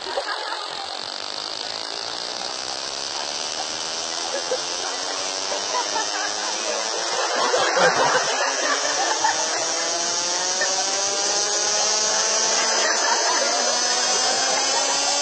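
Elevator 'express mode' whine, a machine-like hum that climbs steadily in pitch and grows louder as if the car is speeding up. A brief rush of noise cuts across it about eight seconds in.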